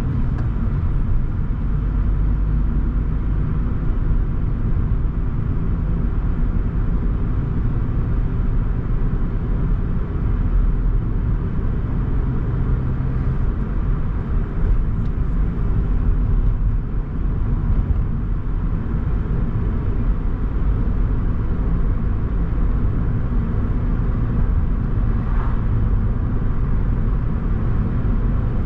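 Car driving along a road: a steady, low rumble of engine and tyre noise.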